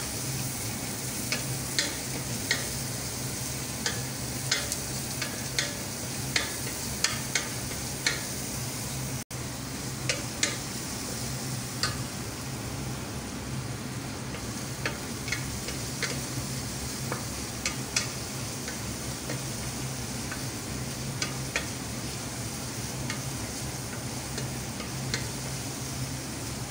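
Sliced onion and garlic sizzling in hot oil in a stainless steel pot while a wooden spoon stirs them. Many sharp clicks of the spoon against the pot come through the sizzle.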